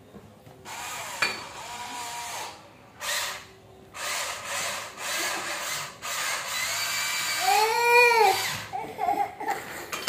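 Electric motors of a radio-controlled toy excavator whirring in several short runs with brief pauses as the boom and arm move. A small child gives a rising-and-falling squeal about eight seconds in.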